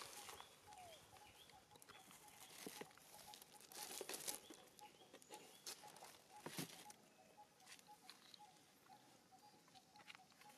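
Near silence outdoors: faint scattered rustles and clicks, with a few faint bird chirps.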